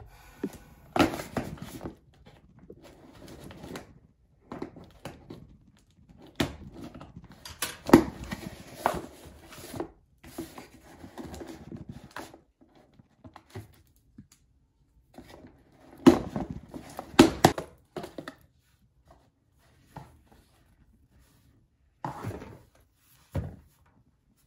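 Cardboard shipping box being opened and unpacked by hand: irregular rustling and tearing of cardboard and packaging, with sharp knocks as boxes are handled on the desk, coming in several bursts separated by short pauses.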